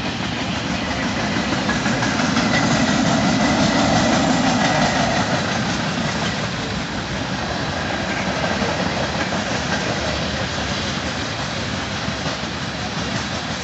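Freight train cars (boxcars and covered hoppers) rolling past, their steel wheels running on the rails. The sound swells about two seconds in and eases slightly after about five seconds.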